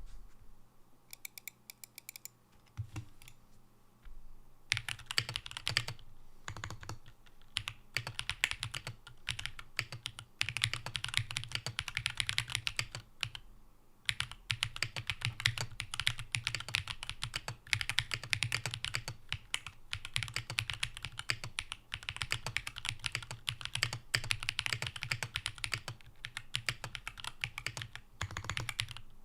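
Typing on a Matrix Vita mechanical keyboard with an aluminium plate, top mount, Gateron Baby Kangaroo tactile switches and GMK keycaps: a few scattered sounds at first, then fast, continuous keystrokes from about five seconds in, with short pauses.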